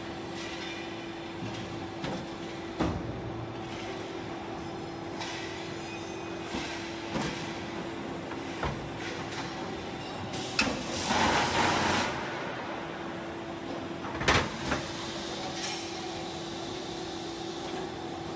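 Foundry floor with a steady machine hum and scattered clanks and knocks of metal molding boxes being handled and joined together. A loud hissing rush lasts a second or two about two-thirds of the way through.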